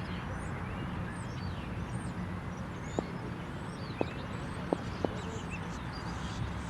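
Small birds chirping repeatedly over a steady low outdoor rumble, with four sharp clicks between about three and five seconds in.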